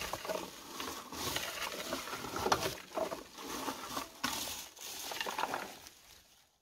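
Red plastic berry picker with metal tines combing through bilberry bushes: leaves and twigs rustle and scrape against the tines, with irregular small clicks as berries are stripped off. It fades out near the end.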